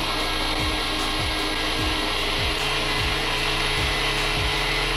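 Electronic background music with a steady kick drum beating about twice a second over held bass tones.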